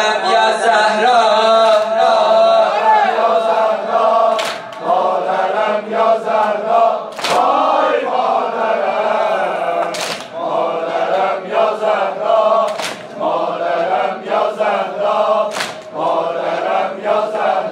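A group of mourners chanting a mourning lament (noha) for Fatima al-Zahra in unison, with a sharp slap about every three seconds keeping time.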